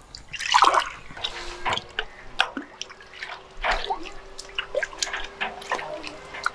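Juice being ladled from a steel tub into a plastic jug: a metal ladle scooping and pouring, with splashing, dripping and many short sharp clinks, the loudest splash about half a second in.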